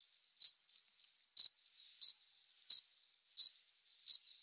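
Cricket chirping sound effect, a steady faint high trill with a sharper chirp about every two-thirds of a second, six in all: the stock comedy cue for an awkward silence after a joke.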